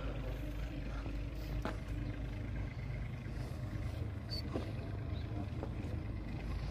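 Steady low rumble of a motor vehicle's engine running, with a few light knocks.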